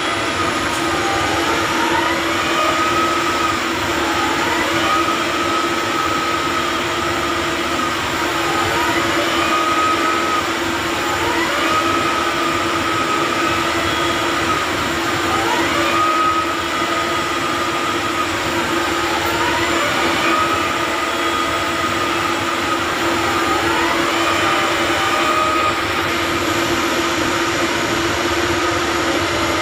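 Rotary bored-piling rig working: a steady, loud machine drone with a whine that dips in pitch and comes back up about every two and a half seconds.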